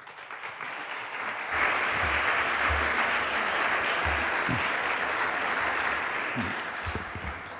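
Audience applauding. The clapping swells over the first second and a half, holds steady, then dies away near the end.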